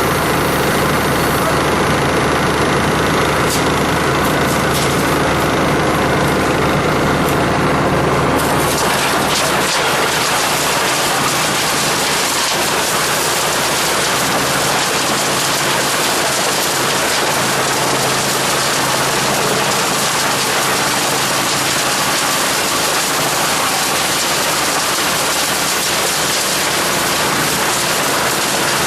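Skorpion 350 EBG wood chipper running with a steady engine note. About eight seconds in, a loud dense rushing noise takes over and continues, consistent with material being fed through and chipped.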